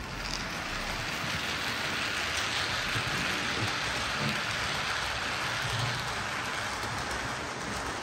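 A steady, even hiss of noise, loudest in the upper-middle range.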